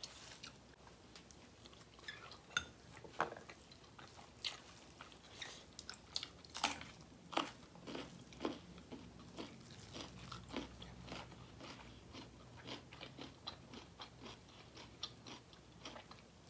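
People eating close to the microphone: irregular crisp crunches, bites and chewing as they eat mouthfuls of food by hand.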